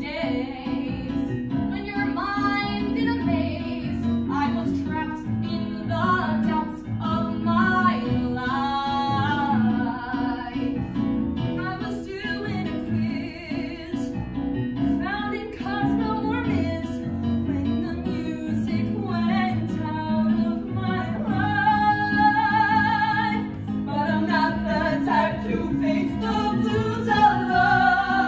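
Girls singing a musical theatre song over instrumental accompaniment, with long held notes sung with vibrato near the end.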